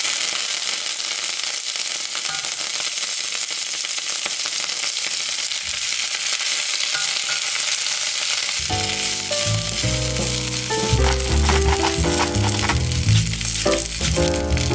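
Kale leaves frying in a wok with plenty of hot oil: a loud, steady sizzle with the oil spattering. About nine seconds in, background music comes in over the sizzle.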